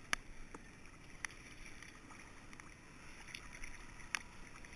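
Water lapping and splashing lightly at the surface right at the camera, with a few sharp ticks, the loudest just after the start and another about four seconds in.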